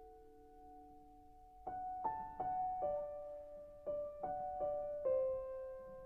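Slow, sad solo piano music: a held chord fades away, then single notes are played one by one in a gently falling line.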